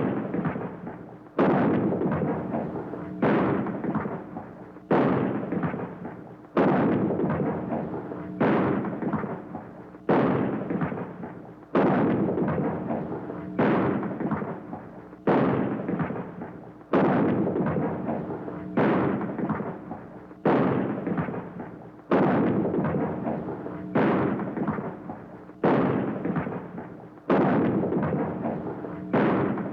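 Shotgun firing over and over, one shot about every second and three quarters. Each shot is a sharp blast followed by a long, fading echo that dies away just before the next shot.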